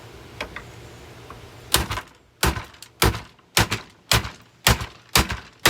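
A Hoover vacuum cleaner being struck with a hammer: a steady run of hard knocks, about two a second, starting a couple of seconds in.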